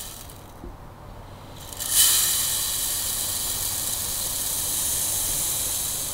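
Fine sand pouring from a plastic container into a clear bottle of small toys: a brief trickle at the start, then a steady hiss of sand streaming in from about two seconds in.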